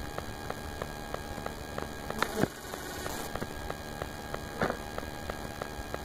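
A swarm of honeybees buzzing steadily close around the camera, with a couple of brief bumps about two and four and a half seconds in.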